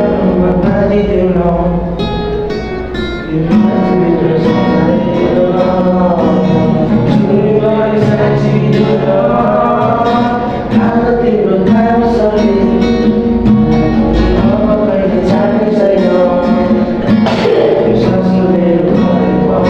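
Background music: a song with a sung vocal over guitar and a steady beat.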